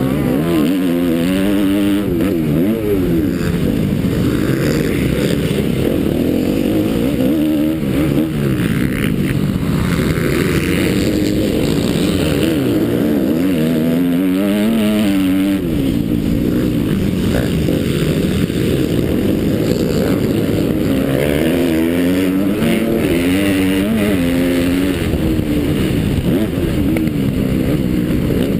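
Motocross bike engine under hard riding, revving up and dropping back again and again as the throttle is opened and shut through the track's straights and corners.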